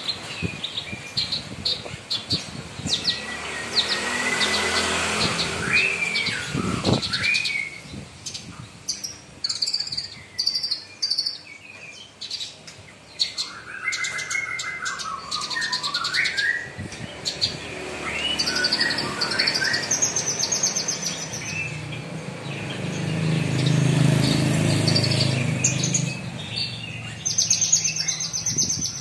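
Javan bush lark (branjangan) singing a long, varied song of whistled glides and rapid high trills. A low rumble swells and fades in the second half.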